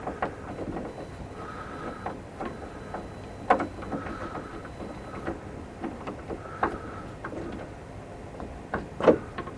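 Clicks and knocks of a door handle set being fitted to an RV interior door and its screws turned in, with a few sharper knocks along the way.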